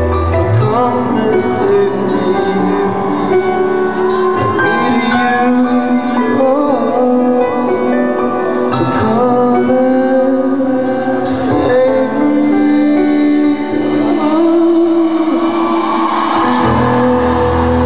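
Live pop band playing with a male lead vocalist singing the melody over keyboards and guitar. The deep bass drops out just after the start and comes back in near the end.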